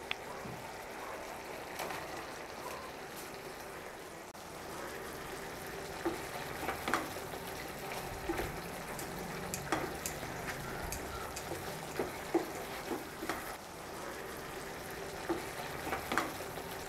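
Thick Manchurian gravy bubbling and sizzling in a nonstick pan as fried cauliflower is stirred into it, with soft scrapes and taps of a wooden spatula against the pan, more frequent from about six seconds in.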